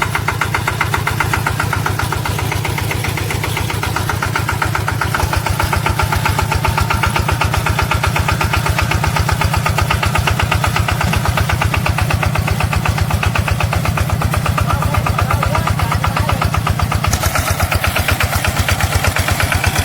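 Engine of a homemade self-propelled rice-field sprayer running steadily with a fast, even chug. A hiss joins near the end.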